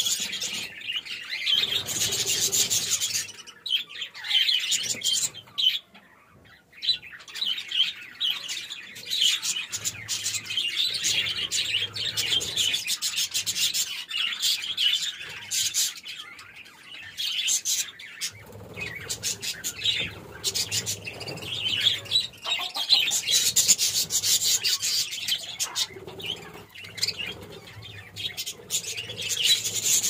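A flock of budgerigars chattering and chirping in fast, dense twitters, with wings fluttering now and then as birds fly between perches. The chatter briefly dies down about six seconds in.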